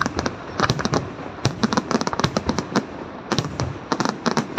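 Aerial firework shells bursting overhead in a dense, irregular string of sharp bangs, several a second.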